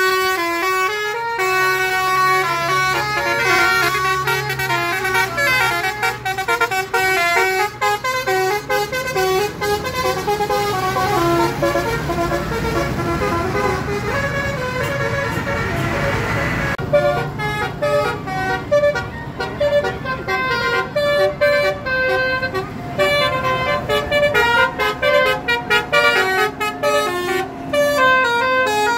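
Bus telolet horn, a set of multi-tone electric horns, playing a long run of quick stepping notes like a tune. A swell of passing engine and road noise comes partway through, and after it the notes come choppier.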